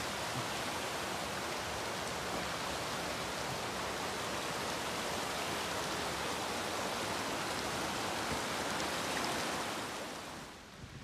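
Steady rush of water running over rocks in a shallow mountain stream, fading out about ten seconds in.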